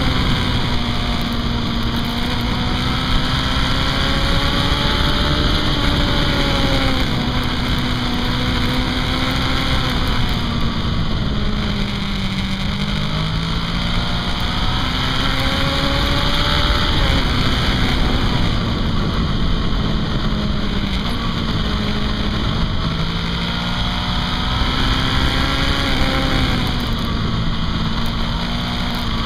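Honda CB500 motorcycle engine heard from onboard, its pitch rising and falling as the rider eases off and opens the throttle through the bends, with a steady rush of wind noise.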